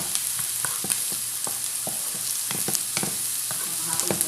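Fried rice with carrots sizzling in a pan, with a spatula scraping and clicking against the pan at irregular intervals as it is stirred.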